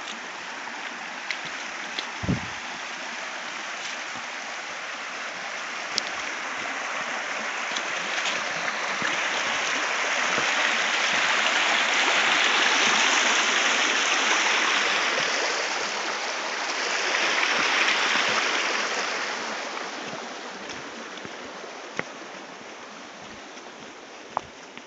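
Mountain stream rushing over rocks, swelling to its loudest midway and then fading away, with a few short knocks.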